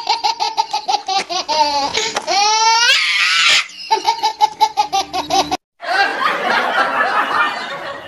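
Dubbed-in laughter sound effects. There is a fast, rapid-fire run of laughing, a rising squealing giggle about two to three seconds in, and then more rapid laughing. After a sudden cut about five and a half seconds in, a noisier, denser stretch of laughter follows.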